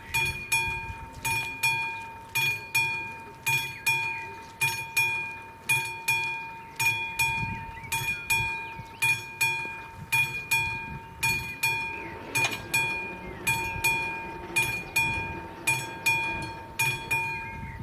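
Railway level crossing warning bell ringing with even, repeated strokes, a little under two a second, each dying away before the next. It signals that the crossing's red lights are flashing for an approaching train.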